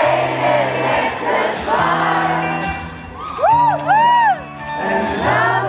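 Live pop song played by a band with a steady bass line, the crowd singing along. About halfway, two loud rising-and-falling whoops from someone close by ring out over the music.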